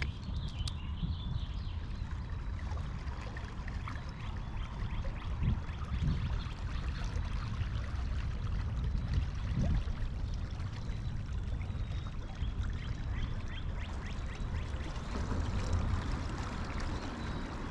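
Water trickling and splashing steadily around a kayak on a moving river, over a constant low rumble.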